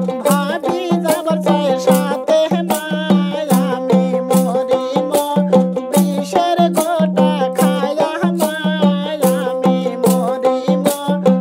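Bengali folk wedding-song (biyer geet) music with a steady, fast percussion beat, a pulsing bass note and a wavering melody line over it.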